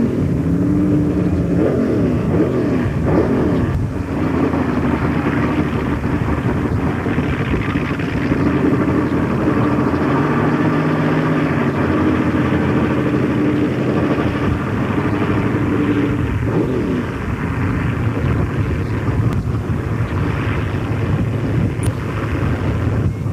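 Mud-bog buggy's engine running hard and revving as the buggy churns slowly through deep mud, the pitch climbing and falling about two to four seconds in and again around sixteen seconds.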